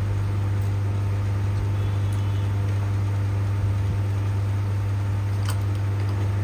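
Electric fans running with a steady hum, and a single light click about five and a half seconds in.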